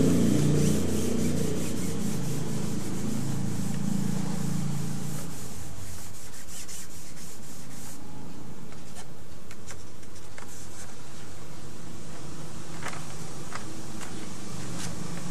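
Cotton balls rubbing machine oil into a sheet of inkjet-printed bond paper on a table: a scrubbing sound, heavier for the first five seconds or so and then a lighter, steady rub with a few short ticks in the second half.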